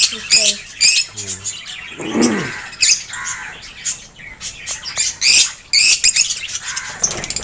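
Lovebirds chirping and squawking in many short, sharp, high calls in quick succession.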